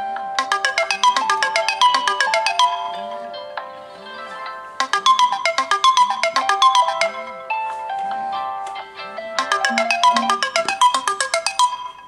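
Two Samsung smartphones, a Galaxy S4 mini and a Galaxy A3, both sounding their alarm tones at once: two electronic ringtone melodies overlap in busy repeating phrases. The sound cuts off suddenly near the end as the alarms are dismissed.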